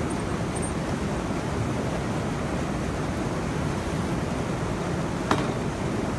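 Water rushing steadily through a needle dam as a needle is pulled out of the weir and the flow pours through the opened gap. A single sharp knock sounds about five seconds in.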